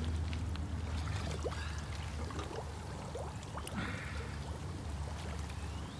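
Lagoon water splashing and trickling as a large carp is lifted and handled in the shallows, over a steady low hum.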